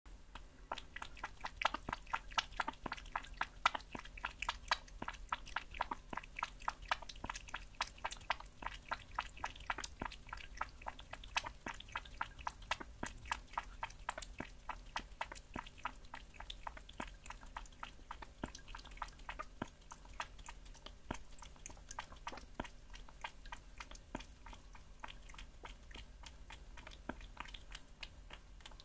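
A kitten chewing raw meat: quick, wet chewing clicks, a few a second, louder in the first half and softer after about twenty seconds.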